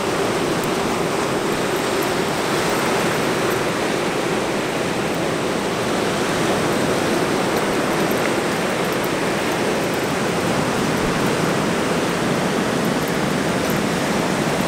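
Ocean surf breaking and washing up the beach, a steady rushing hiss with no let-up.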